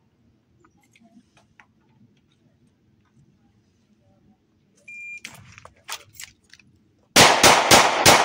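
A shot timer's short beep a little after halfway, some handling clicks as the pistol comes out, then near the end a fast string of loud 9mm shots from a Ruger Max 9 Pro micro-compact pistol, about four a second, as in a Bill drill.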